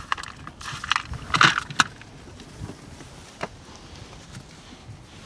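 Light rattles and clicks from a shrimp pot being handled: a cluster about a second in, then a single click a couple of seconds later.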